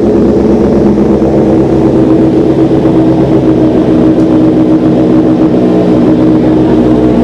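Kawasaki Z900's inline-four engine idling steadily through an SC-Project titanium full-system exhaust.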